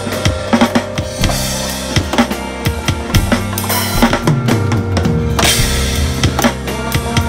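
Drum kit sounds from EZdrummer 3 samples, triggered from an electronic drum kit: a rock groove of kick, snare and tom strokes, with crash cymbal hits a little over a second in and again around five and a half seconds. Held notes of the song's backing track run underneath.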